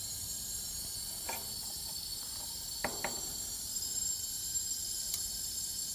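Steady high-pitched hiss of nitrogen flowing from the cylinder regulator through the manifold into the refrigerant lines, pressurising the system for a leak test. A few faint knocks from the manifold sound partway through, and a light click near the end is typical of the unit's pressure switch closing as pressure builds.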